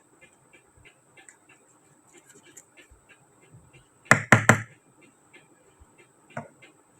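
Small plastic pieces of a miniature toy kitchen set being handled, with light clicks and taps about three a second. Three sharp knocks come in quick succession about four seconds in, and one more near the end.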